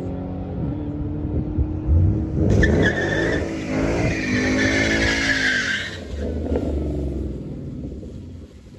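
Ford Mustang doing a burnout: the engine is held at high revs while the rear tyres spin and squeal, from about two and a half seconds in until about six seconds. The engine then drops back and the sound fades as the car rolls forward.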